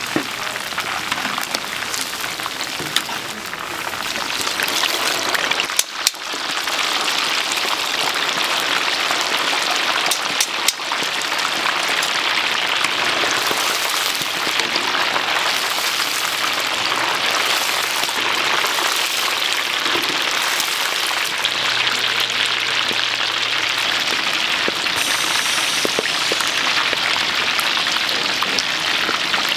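Chicken deep-frying in a vat of hot oil: a steady sizzling hiss that grows louder about five seconds in, with a few sharp crackles.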